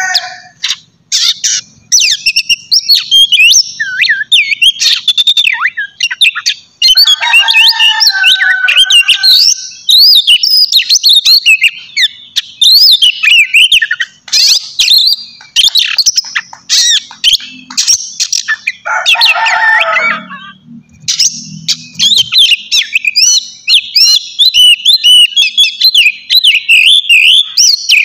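Oriental magpie-robin singing a loud, fast, continuous song of varied whistles and chattering notes. Twice, about a quarter and about two-thirds of the way through, it breaks into a short stretch of lower, harsher notes.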